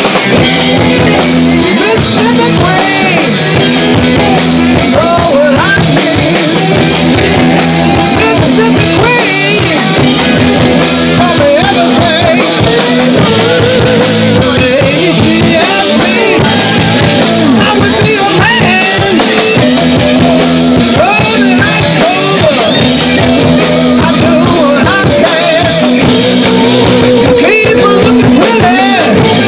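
Live rock band playing loudly, with electric guitars and a drum kit.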